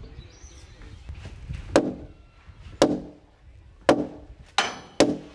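Five hand-hammer blows on a heavy timber bargeboard as it is knocked into place on the gable. Each is a sharp knock with a brief woody ring. They are irregularly spaced, and the last two come close together near the end.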